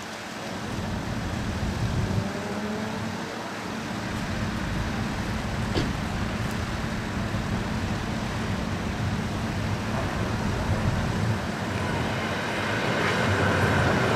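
Steam-hauled train running by with a low rumble that grows steadily louder.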